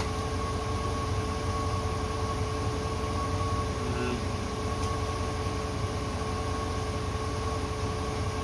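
Steady machine hum with a couple of constant tones, unchanging throughout.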